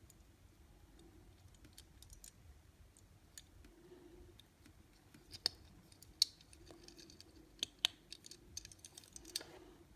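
Light clicks and taps of a small 1/64-scale diecast toy car and its parts being handled. A few sharper clicks come in the middle and a quick run of them near the end.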